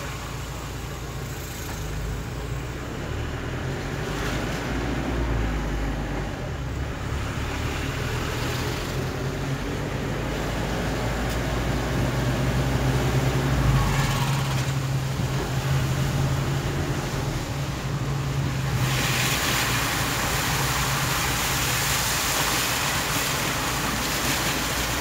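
A vehicle's engine hums steadily at low speed, heard from inside the cabin. A little over three-quarters of the way through, a loud steady rushing hiss of water comes in and continues as the wheels run into floodwater.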